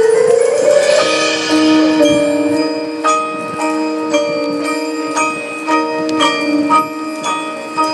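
Marching band playing its show music: a held chord that swells upward in the first second, with bell-like struck notes ringing over it every half second or so.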